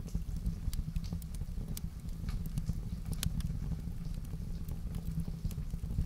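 Wood fire in a fireplace crackling, with irregular sharp pops and snaps over a steady low rumble.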